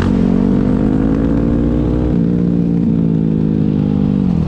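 Off-road vehicle engine running steadily under throttle. Its pitch creeps gently upward, dips slightly about two seconds in, and falls away near the end.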